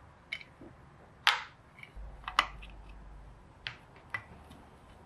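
Small metallic clicks and taps of a flat-blade screwdriver and loose screws against the aluminium body of a Dellorto DHLA carburettor as its air bleed screws are taken out. About half a dozen scattered clicks, the loudest about a second in.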